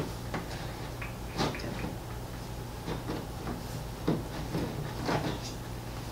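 Scattered soft knocks and light clatter of slime-making containers and utensils being handled on a tabletop, over a steady low hum.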